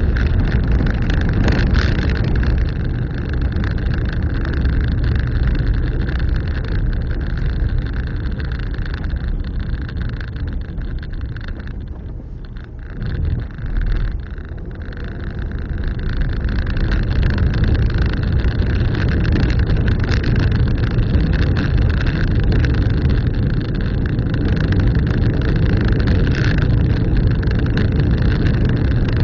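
A car driving on a dirt road: steady low engine and tyre rumble. It eases off about twelve seconds in and builds back up a few seconds later.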